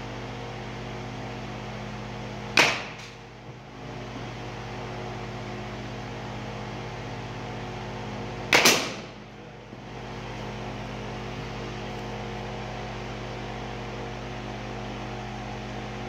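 A baseball bat hitting pitched balls twice, about six seconds apart, each a sharp crack with a short ring after it, over a steady low hum.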